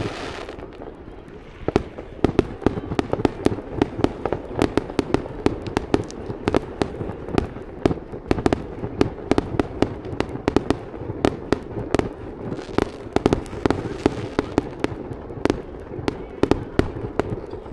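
Fireworks display going off: a dense, continuous run of sharp bangs, several a second and of uneven strength, some much louder than the rest.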